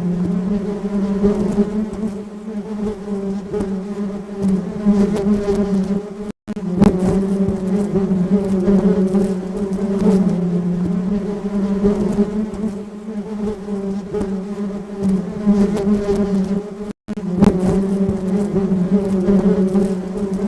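Honeybees buzzing: a steady, slightly wavering drone with a low hum and overtones above it, cut off by a split-second gap of silence twice.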